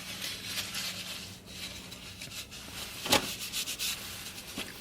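Soft rubbing and scraping of eating from food containers, with scattered light ticks and one sharp click about three seconds in. A low steady hum runs underneath and stops a little after two seconds in.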